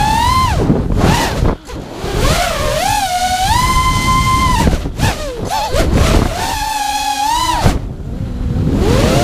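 FPV quadcopter's brushless motors and propellers whining, the pitch sliding up and down as the throttle changes. The whine falls away briefly about a second and a half in and again near the eight-second mark, then climbs back.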